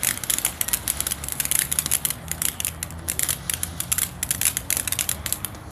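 Dragon Slayer firework fountain burning, its spray giving off a dense, irregular crackle of many tiny pops.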